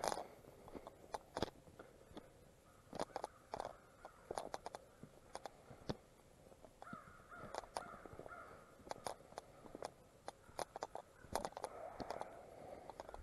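Footsteps crunching through dry fallen leaves on a dirt woods road, an uneven run of sharp crunches and rustles.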